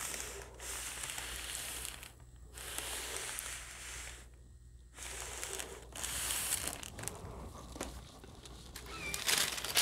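Household iron sliding and pressing across a pressing sheet laid over the quilt layers, heard as several stretches of rustling with short pauses between them. Near the end the sheet crinkles as it is smoothed and handled by hand.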